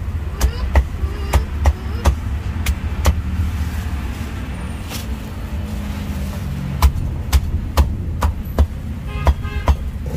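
A meat cleaver chopping a roast duck into pieces on a round chopping board, each chop a sharp knock of the blade through the bird and into the board. The chops come in a quick run, pause for about three seconds, then come in another run. A steady rumble of street traffic runs underneath.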